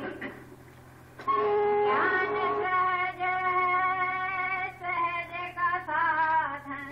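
Devotional singing: a voice holding long notes that bend between pitches, resuming about a second in after a brief pause, over a steady low hum.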